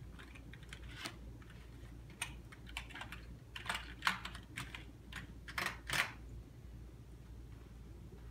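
Computer keyboard keys clacking irregularly as they are pressed while being wiped down with a bleach wipe. The clicks are busiest around the middle and die away near the end.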